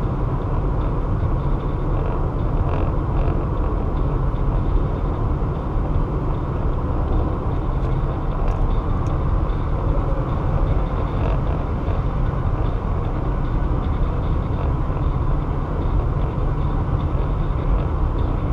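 A car driving at highway speed, with steady road and tyre noise and a low rumble.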